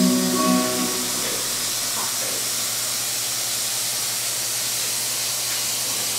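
Acoustic guitar notes ring out and fade away in the first second, and the playing stops. After that only a steady hiss with a low hum is left.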